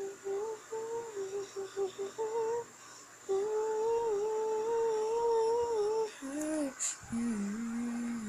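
A person humming a tune: a few short notes, then one long held note, then lower notes near the end.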